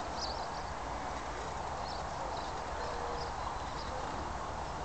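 Steady outdoor background noise with a low rumble of wind on the microphone and a few faint, short high chirps.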